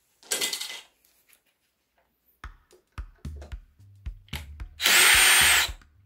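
Cordless brushless drill-driver undoing the screws of a wall light-switch plate: a few knocks and clicks as the bit is set in the screw head, then the drill runs for about a second near the end with a high whine.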